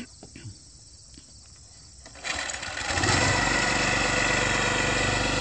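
A knock and a few light clicks at the sprayer's engine, then the small gasoline engine driving the high-volume sprayer pump starts about two seconds in and settles into a steady run.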